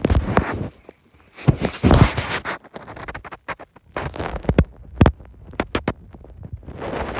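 Close-up handling noise: irregular rustles and scrapes with several sharp clicks in the middle.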